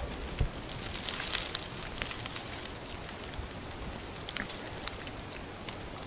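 Faint crackles and clicks of a heat-shrunk plastic water bottle being handled, thickest about a second in, then a few scattered ticks.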